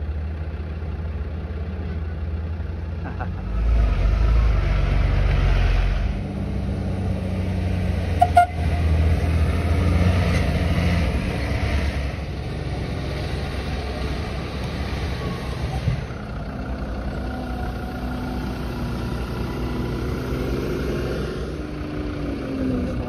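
Diesel engines of heavy off-road expedition trucks running as they drive over a desert track, a steady low drone. It gets louder with a rush for a couple of seconds about four seconds in, and there is a sharp knock around eight seconds.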